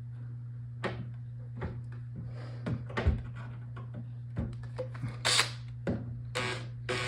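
Scattered light knocks and taps, about a dozen, as an electric fireplace insert is lifted and shifted in its wooden frame, over a steady low hum.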